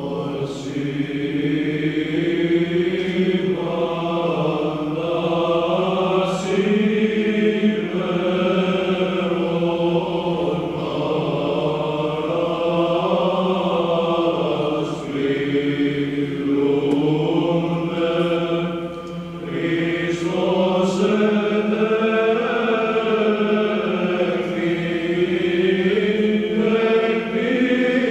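Male Byzantine chant choir singing a Christmas hymn a cappella, the melody moving over a steady low drone (the ison) held throughout.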